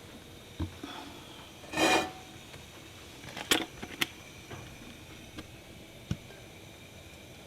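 Kitchen cookware being handled: a short scrape about two seconds in, then a few scattered light knocks and clicks as pots and utensils are set down and moved.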